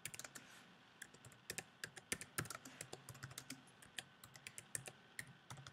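Typing on a computer keyboard: a run of soft, quick, irregularly spaced key clicks.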